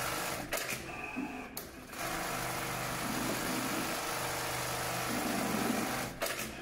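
Brother BAS-342G direct-drive industrial pattern sewing machine running at speed, stitching through leather held in its clamp frame: a steady fast stitching clatter. It drops out about half a second in, starts again about two seconds in, and stops near the end.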